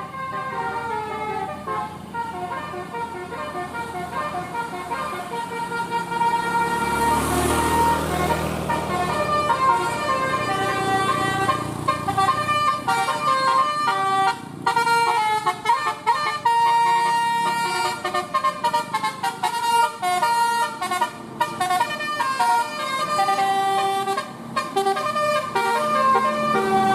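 Bus 'telolet' musical air horn playing a tune of held notes that step up and down in pitch, with a brief rush of noise about seven seconds in.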